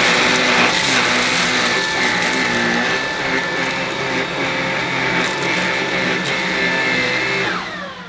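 Bosch Unlimited BCS111GB cordless stick vacuum running on turbo mode, its motorized floor brush going over a textured rug: a steady high-pitched motor whine with a few short clicks. Near the end the motor is switched off and its pitch falls away as it winds down.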